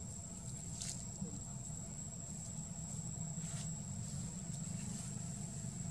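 Young monkeys scuffling in dry leaves: two brief rustles, about a second in and again past three and a half seconds, over a steady low rumble and a constant thin high whine.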